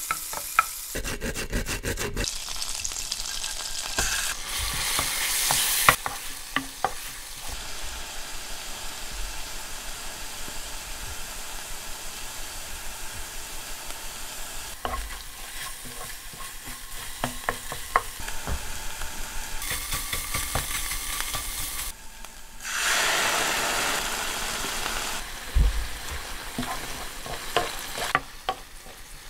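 Butter and then minced chicken sizzling in a hot nonstick frying pan, stirred with a wooden spatula that scrapes and taps against the pan. The sizzle swells and fades with the stirring and is loudest about three quarters of the way through.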